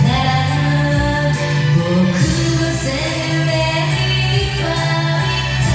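Karaoke: a pop ballad backing track with a voice singing along, holding long notes.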